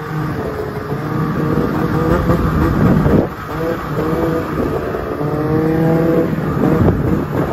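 Arctic Cat Alpha snowmobile's two-stroke engine running, its pitch rising and falling as the throttle is worked, with a brief drop about three seconds in.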